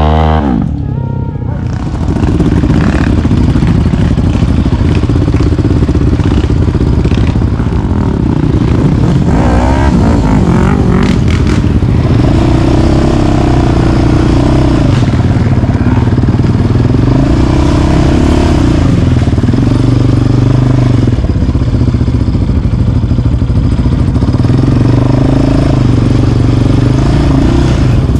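Quad bike (ATV) engine running hard under throttle, its revs rising and falling repeatedly as it is ridden over rough ground. It eases off briefly about a second in, then keeps working.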